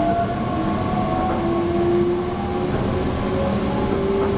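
Meitetsu 3150 series electric train running, heard from inside the car: the VVVF inverter and traction motors give a whine that slowly rises in pitch as the train picks up speed, over a steady rumble of wheels on rail.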